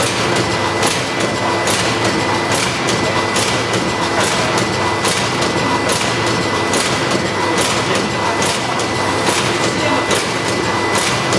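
Horizontal pouch filling and packing machine running, with a steady mechanical din and a sharp clack a little more than once a second as its mechanism cycles. A thin, steady high tone runs underneath.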